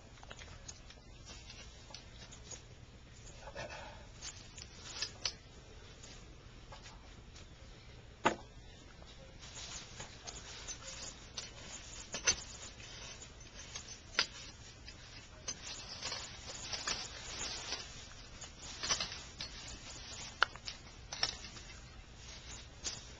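Hands rustling and scraping through dry leaf litter and soil in a garden bed, in irregular patches that get busier after about ten seconds. Sharp clicks and snaps come every few seconds.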